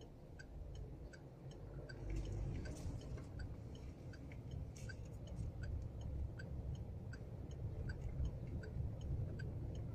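Low road rumble inside a car driving over cobblestones, with a turn-signal indicator ticking evenly about twice a second.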